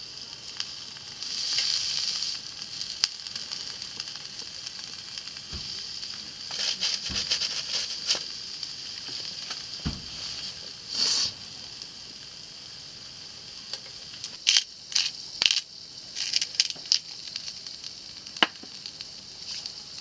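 Food sizzling in a frying pan: a steady high hiss that swells and crackles at times. A few dull knocks and a run of sharp clicks come in the second half.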